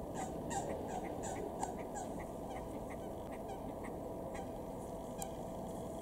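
Waterfowl calling: a quick series of short calls that thins out to a few scattered ones after the first half, over a steady low rumble of background noise.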